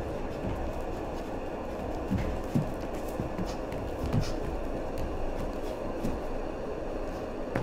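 Bare feet thudding and stepping on a stage dance floor: a handful of soft, uneven thumps, the loudest about two and a half seconds in, over a steady low rumble.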